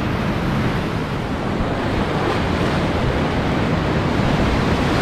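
Whitewater of a boulder-strewn river rapid rushing and churning close around a kayak: a steady, loud rush that swells slightly toward the end.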